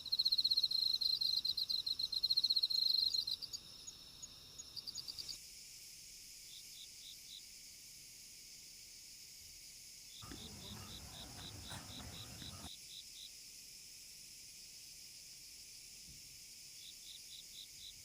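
Insects chirping in rapid pulsed trains, loud and close for the first few seconds, then fainter and intermittent over a steady high hiss. A soft rustle of noise comes in for about two seconds near the middle.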